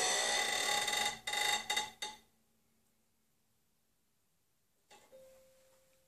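Upper strings of a concert harp bowed with a violin bow: a dense, high scraping squeak with many tones at once, breaking up in a few jerks and stopping about two seconds in, while a lower string rings on faintly. About five seconds in, a light knock and a faint brief tone.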